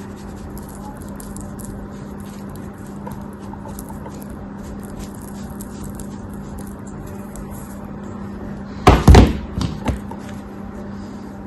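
Close-up crunchy crackling of a craft material being handled for ASMR, over a steady low hum, with a loud burst of knocks about nine seconds in and two smaller ones just after.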